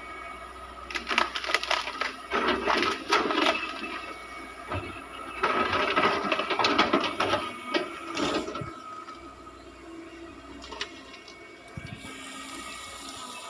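Small Caterpillar excavator at work: two spells of crunching and cracking, each a few seconds long, about a second in and again about five seconds in, over the machine's steady running hum.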